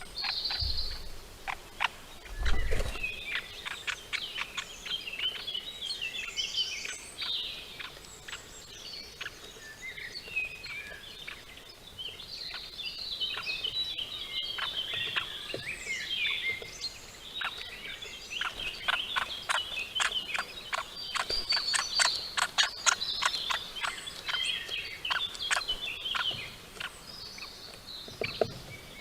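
Songbirds singing and chirping, with many short sharp ticks scattered through, densest a little past the middle, and a single low thump about two and a half seconds in.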